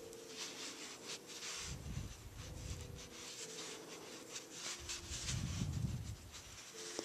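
Faint rubbing and rustling of yarn as a metal crochet hook is worked through single crochet stitches, with two soft low rumbles of handling.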